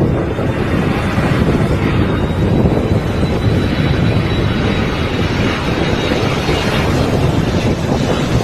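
Strong wind buffeting the microphone in a steady, loud rush, with a faint, thin high whine running through the middle of it.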